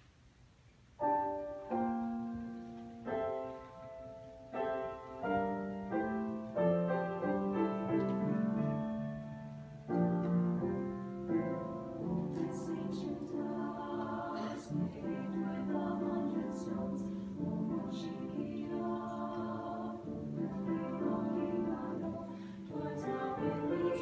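Mixed choir singing a piece that begins about a second in with a few separate, sharply started chords, then flows into continuous singing.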